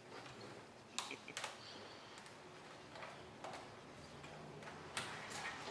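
Faint plastic clicks and taps from a laptop being handled, coming in pairs about half a second apart.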